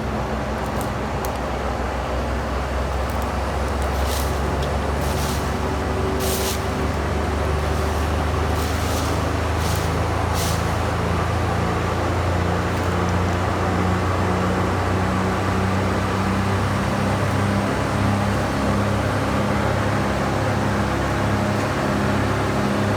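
A large engine running steadily with a low rumble, with several short hisses about four to ten seconds in.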